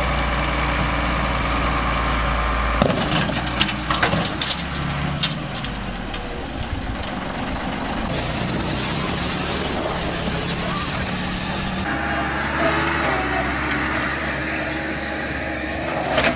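Pulling tractors' engines running hard, with voices in the background. The sound changes abruptly about three, eight and twelve seconds in, as one clip cuts to the next.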